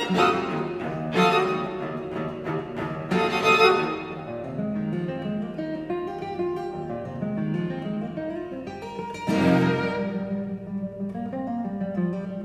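Classical guitar and string quartet playing together: plucked guitar notes over bowed violins, viola and cello, punctuated by several sharp accented chords.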